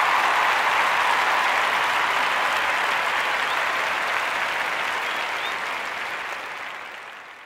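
Audience applauding after a song, fading away near the end.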